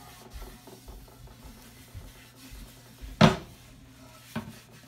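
The wooden bowl of a Persian tar knocking against a wooden tabletop as it is turned over, with a loud knock about three seconds in and a smaller one just before the end, among light handling knocks.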